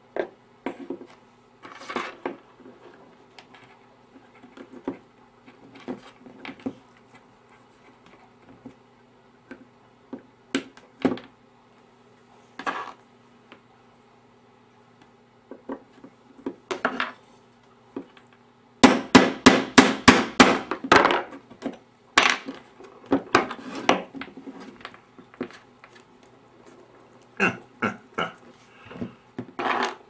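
Pliers clicking and knocking against a plastic EC3 connector housing and the work surface as the connector's pins are pressed home. Scattered single taps, then a quick run of sharp clicks about two-thirds of the way through, with a few more near the end.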